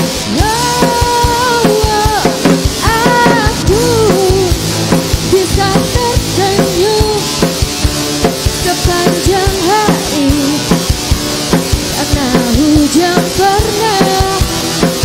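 Live band playing a pop-rock song: drum kit keeping a steady beat under electric and acoustic guitars and keyboard, with a lead melody that slides up and down in pitch over the top.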